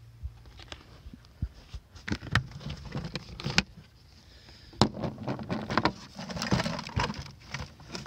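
Plastic bucket lid being worked off by hand: a series of sharp clicks and knocks with plastic rattling and rustling between them.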